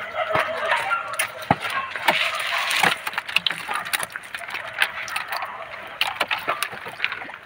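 A plastic tub full of fresh fish being shifted and handled on the ground, giving irregular knocks, scrapes and clatters, with voices murmuring in the background.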